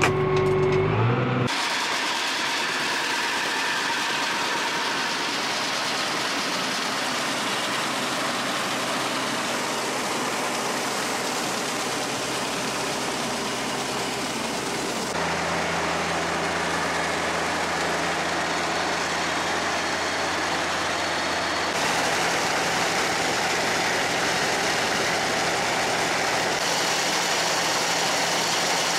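Tractor-driven grain auger running steadily while loading a truck: engine hum under a continuous rushing noise, changing abruptly a few times between shots.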